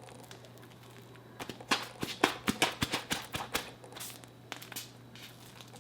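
Sticky melted marshmallow (microwaved Peeps) being squeezed and pulled between fingers: a quick run of wet, clicking smacks for about two seconds, then a few scattered ones.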